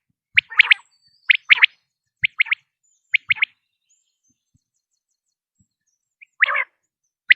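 Common quail calling its short, sharp two- and three-note 'whit, whit-whit' phrase, about once a second four times. After a pause of about three seconds comes a lower, rougher note, and a new phrase begins at the very end.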